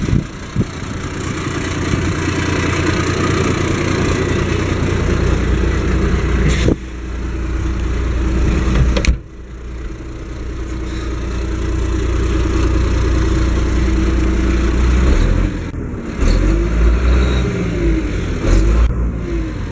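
Case IH 1056 XL tractor's six-cylinder diesel engine idling steadily, heard close beside the engine and then from inside the cab. A sharp knock about nine seconds in, after which the engine sounds quieter for a while.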